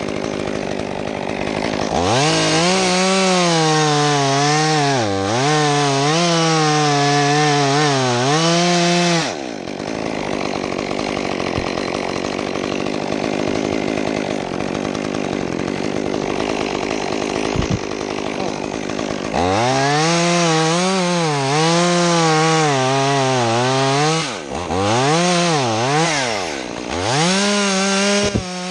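Gas chainsaw revved to full throttle and cutting true red fir, its pitch dipping repeatedly as the chain loads up in the wood. It drops back to a lower idle for about ten seconds in the middle, then revs up and cuts again.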